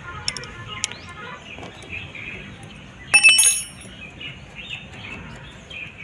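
Metal parts clinking during work on a motorcycle clutch cable: a couple of light clicks in the first second, then one loud, bell-like ringing clink about three seconds in. Birds chirp faintly in the background.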